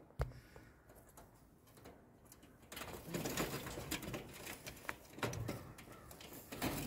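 Racing pigeons cooing in the loft, with irregular rustling and clicking starting a little under three seconds in.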